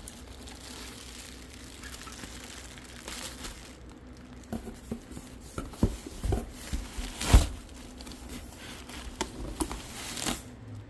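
Packing material in a cardboard box being crumpled and rustled as it is pulled out by hand, with scattered light knocks, the loudest about seven seconds in.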